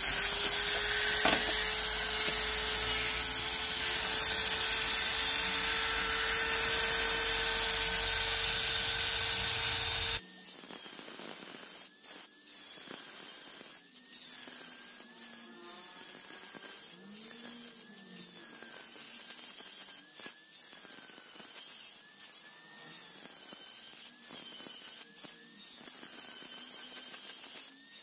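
Handheld rotary tool with a ball burr grinding into a seashell: the motor runs at a steady high whine over the hiss of the burr on shell. About ten seconds in, the sound abruptly drops in level and turns thinner and choppy, with short breaks and a wavering higher whine.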